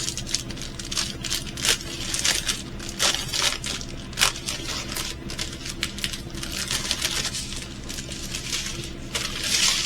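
Small plastic bags of resin diamond-painting drills being handled and laid out, crinkling with many small clicks and taps.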